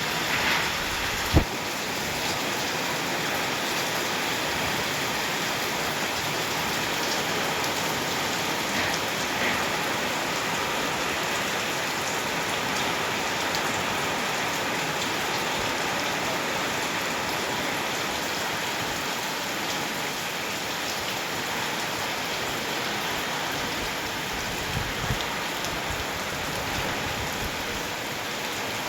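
Steady rain falling and splashing on surfaces, an even hiss throughout. A single sharp knock stands out about a second and a half in.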